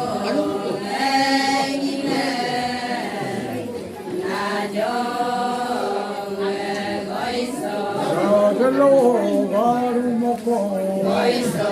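Adi Ponung song: several voices chanting together in sung phrases of a few seconds each, with a steady low hum underneath.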